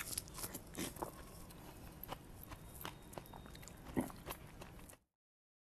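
Faint mouth sounds of a man eating soft fruit custard from a spoon: small lip smacks and chewing clicks, with one louder click about four seconds in. The sound cuts off suddenly shortly before the end.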